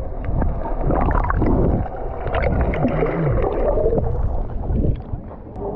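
Sea water gurgling and sloshing around a snorkeller and the camera at the surface.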